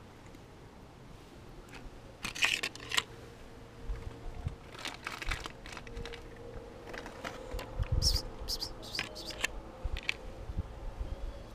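A thin aluminium foil food tray being handled on paving stones, crinkling and clicking in short bursts: a cluster about two seconds in and more from about five to ten seconds in.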